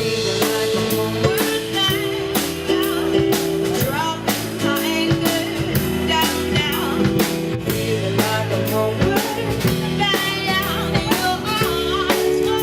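Band music with a steady drum-kit beat, held chords and singing.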